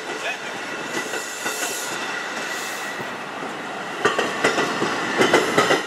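NJ Transit Multilevel bilevel passenger coaches rolling past with steady wheel-on-rail noise and a thin, high squeal. From about four seconds in, the wheels clack over rail joints in a quick run and the sound gets louder.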